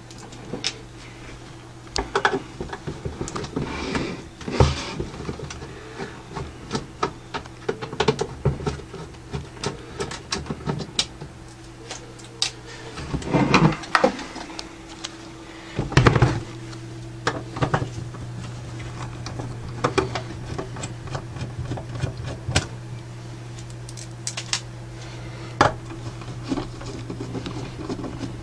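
Screwdriver undoing the screws on the underside of a Radiotehnika U-101 stereo amplifier's case: a run of small clicks, scrapes and rattles, with a few heavier knocks as the amplifier is turned over on the desk, over a steady low hum.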